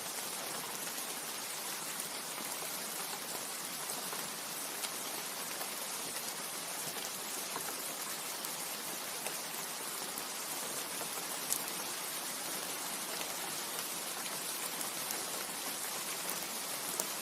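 Steady rain falling on leaves, an even hiss with occasional distinct drop ticks.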